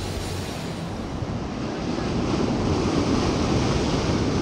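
Ocean surf breaking and washing over a rocky shore, swelling louder about two seconds in, with wind buffeting the microphone.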